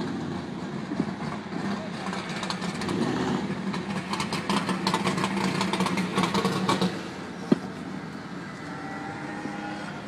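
Drag cars' engines running at the starting line. A steady engine hum builds and holds for a few seconds with a light crackle, then drops back about seven seconds in to a quieter idle, with one sharp click just after.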